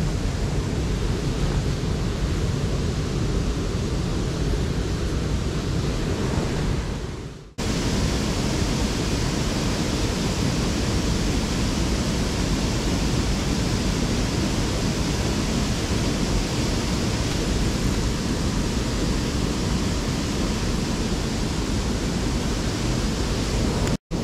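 Steady rush of water pouring through a small river's spillway, an even roar with no rhythm. It drops out briefly about seven seconds in and again near the end.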